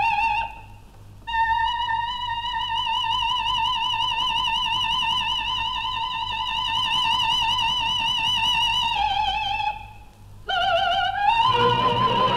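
Operatic soprano with orchestra in an old live opera recording. About a second in she takes a high note and holds it for about seven seconds with a wide vibrato. After a brief break a rising phrase leads to another held note as the orchestra comes in fuller near the end.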